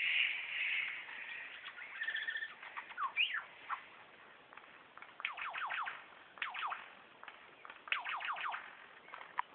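Superb lyrebird singing its mimicry repertoire: a harsh chattering at first, a short whistle, then bursts of rapid falling sweeps about five, six and a half and eight seconds in, like the laser-gun sound it mimics.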